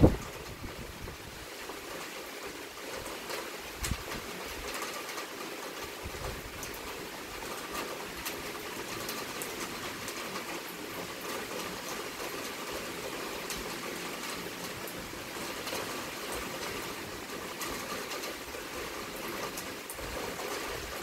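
Heavy rain pouring down in a dense, steady hiss. A brief low thump sounds right at the start.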